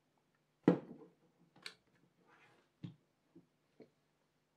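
Ricoh GR's back plate being unclipped and lifted off the camera body: one sharp click under a second in, then a few fainter clicks and taps as the parts are handled.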